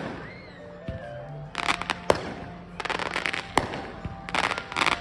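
Aerial fireworks going off: sharp bangs of bursting shells, with three dense rounds of crackling between them.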